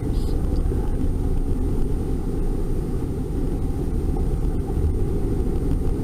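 Steady low rumble of a car being driven, heard from inside the cabin: engine and tyre road noise.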